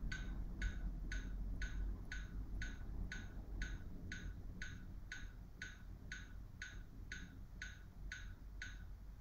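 Metronome clicking steadily at about two beats a second, then stopping just before the end.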